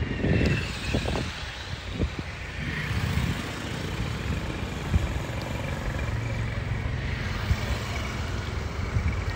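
Vehicles passing on a road bridge, with wind buffeting the microphone.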